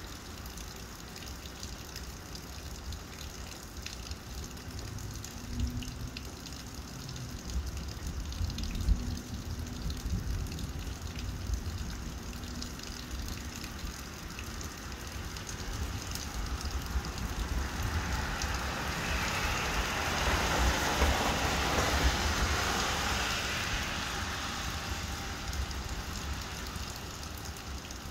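Steady rain falling during a thunderstorm, with a low rumble in the first half and a rushing hiss that swells and fades again about two thirds of the way through.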